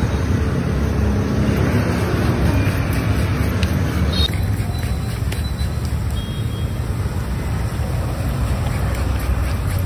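Banana slices deep-frying in a large wok of oil, sizzling, over a steady low rumble like street traffic; the background changes abruptly about four seconds in.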